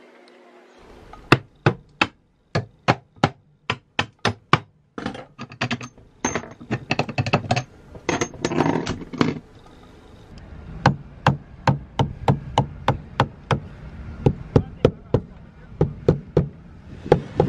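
Repeated blows of a soft-faced mallet on a metal sailboat chainplate, about two a second, with a short pause about ten seconds in. The chainplate is being tapped to work it loose from the deck, where it is stuck tight.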